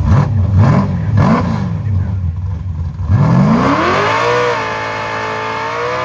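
Drag car engine revving in quick blips, then accelerating hard about three seconds in, its pitch climbing steeply before holding high and steady.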